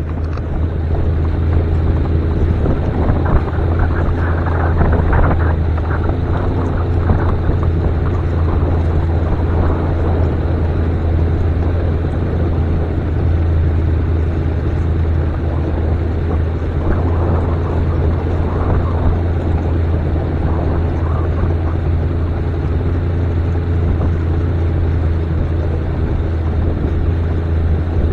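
Outboard motor of a 16-foot fishing boat running steadily under way, a constant low drone with water and wind noise from the moving boat.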